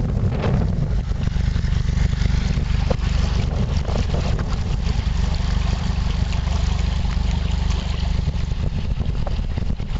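Narrowboat's inboard engine running steadily at low speed, a continuous low rumble as it drives the boat slowly forward.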